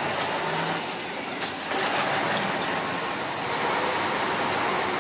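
MAN semi-tractor's diesel engine running as the truck pulls away, with a short burst of hiss about one and a half seconds in.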